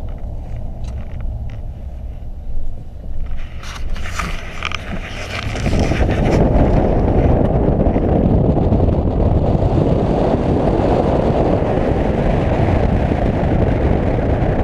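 Vehicle rumbling along, with a few knocks and rattles a couple of seconds in. About six seconds in, a loud steady rushing noise takes over and runs until near the end.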